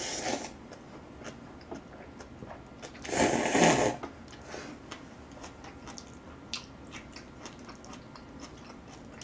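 A person slurping Chapagetti black-bean instant noodles from a cup: a short slurp at the start and a louder, longer slurp about three seconds in, with soft wet chewing and small clicks between them.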